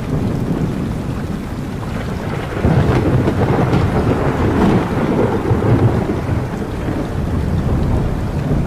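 Thunderstorm: steady rain with rolling thunder, the thunder growing louder about three seconds in and rumbling on.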